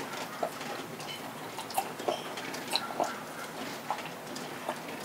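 Rain outside, a steady patter with irregular single drops ticking and plinking several times a second.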